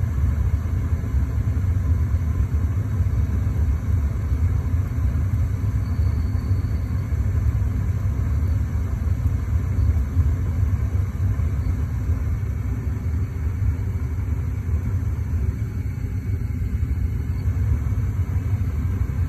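Trane XL80 gas furnace firing with its burners lit and the flame detected: a steady low rumble of combustion and the draft inducer fan.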